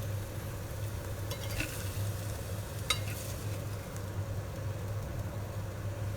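Low sizzling in a heated toasted-sandwich maker as a mushroom and onion filling is spooned onto the bread, with a couple of light clicks of the spoon about a second and a half in and near three seconds in.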